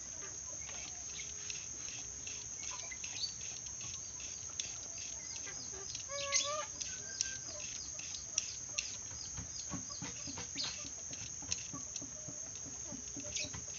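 Bird sounds: many short sharp chirps and clicks, with one brief pitched call about six seconds in, over a steady high hiss.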